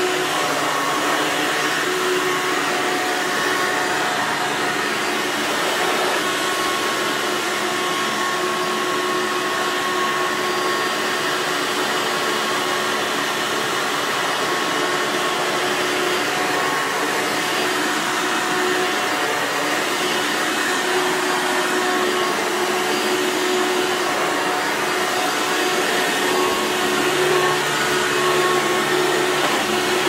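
Hoover Runabout vacuum cleaner's motor running steadily, a continuous rushing whine with a few held tones, running smoothly on its newly fitted fan. A lower hum joins in near the end.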